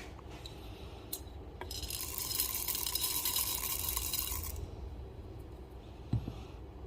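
Whole coffee beans poured into a 1zpresso K Pro hand grinder, rattling in for about three seconds. A few light clicks come before it, and a single knock comes near the end.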